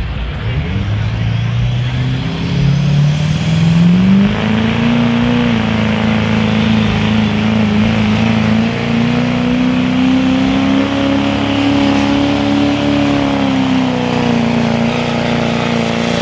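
Chevrolet Silverado's Duramax diesel V8 under full load pulling a sled. The engine note climbs in two steps over the first few seconds, with a high whistle rising alongside it, then holds at high revs, easing slightly past the middle.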